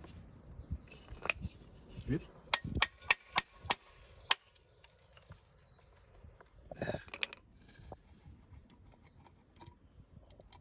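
A hammer tapping the end of a screwdriver to shock loose a stuck screw on a motorcycle carburettor bank: sharp metallic taps, about half a dozen in two seconds, with lighter clicks and a short scrape afterwards.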